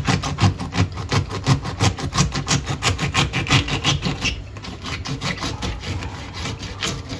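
Small kitchen knife cutting away the tough tips of artichoke leaves on a wooden cutting board: quick crisp cuts, about five a second, that thin out and get quieter after about four seconds.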